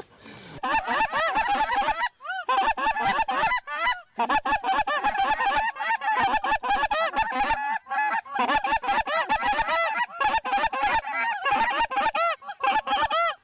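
A large flock of lesser Canada geese honking in a dense, overlapping chorus of short calls, with brief lulls about two and four seconds in.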